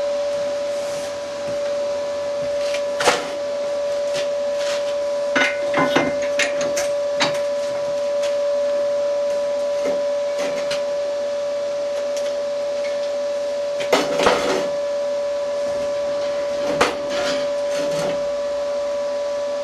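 A machine in the workshop running with a steady, even hum, while metal knocks and clinks sound over it now and then, loudest about 3, 6, 14 and 17 seconds in.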